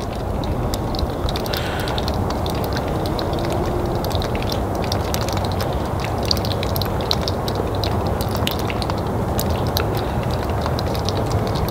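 Steady outdoor background noise: a low rumble with faint scattered ticks and no distinct events.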